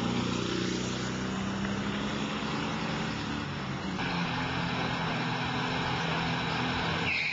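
Air-cooled Volkswagen Beetle flat-four engine running, a steady low engine drone. A brief higher-pitched sound comes right at the end.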